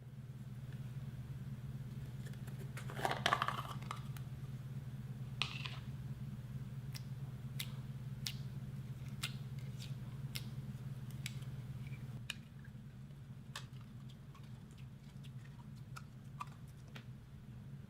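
Clear slime being worked by hand, giving scattered sticky clicks and pops with a short crackly burst about three seconds in, over a steady low hum.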